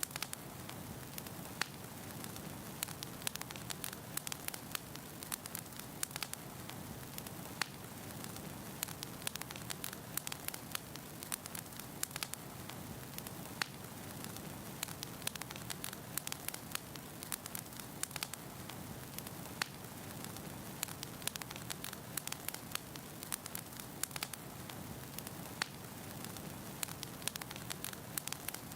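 Wood fire burning in a fireplace: logs crackling and popping in irregular sharp clicks over a steady low rush of flame.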